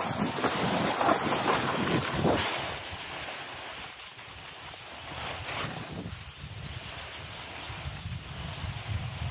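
Wind buffeting the camera microphone while a snowboard slides and scrapes over packed snow. Louder with surges for the first couple of seconds, then steadier and quieter.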